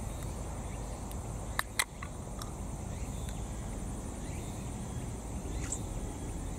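Steel can of Wonda canned coffee cracked open: two sharp clicks close together about a second and a half in as the pull-tab is lifted. A steady high insect buzz runs underneath.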